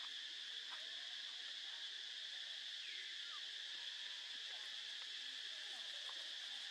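Steady high drone of insects in a forest, with a few faint short calls over it, one falling in pitch about three seconds in.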